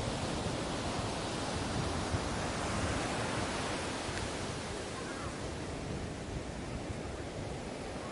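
Ocean surf washing on a beach: a steady rush of breaking waves, swelling a little in the first half and easing off after about five seconds.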